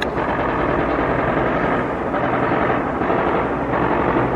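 Battlefield noise: a loud, steady roar of combat sound, gunfire and blasts blurred together.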